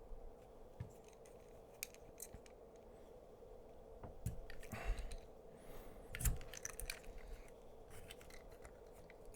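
Faint scattered clicks and scrapes of small parts being handled and worked on a workbench, over a steady low hum.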